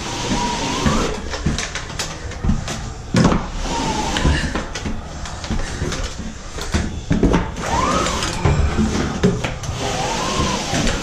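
Drywall flat box on its extension handle scraping joint compound along a wall joint: a steady rasping noise broken by frequent clicks and knocks from the box and handle.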